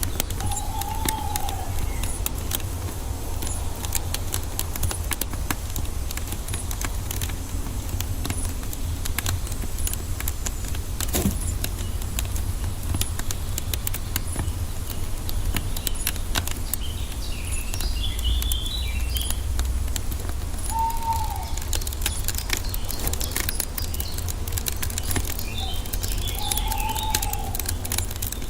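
Wood fire crackling with frequent small pops over a steady low rumble. A bird gives a short rising-and-falling call three times, and small birds chirp briefly twice.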